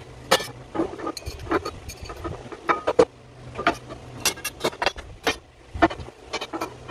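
Tubes and parts of a double pole clothes rack clinking and knocking as they are handled and laid on a wooden floor: an irregular string of sharp clicks and taps, the loudest about three seconds in.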